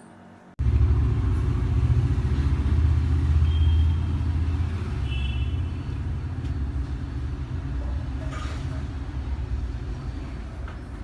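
LG front-loading washing machine running a wash: a steady low rumble that starts abruptly about half a second in and slowly grows quieter.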